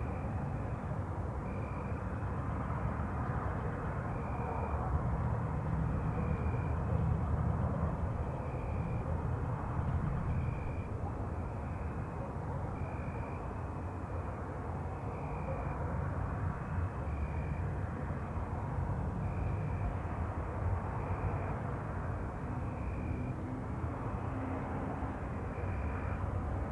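Night ambience: a steady low rumble like distant traffic, with a short high chirp repeating about every two seconds.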